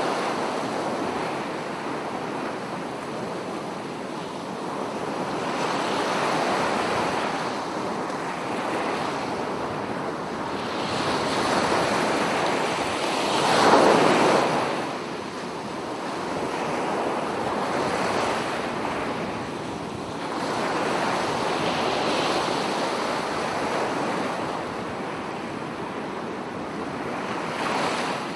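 Ocean surf: waves breaking and washing in, swelling and easing every few seconds, with one louder break about halfway through.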